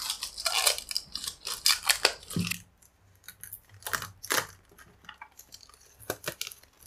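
Clear plastic wrapping and protective film being peeled off a soundbar's glossy plastic body, crinkling and crackling. The crackling is dense for the first two seconds or so, then thins to scattered sharp crackles and clicks.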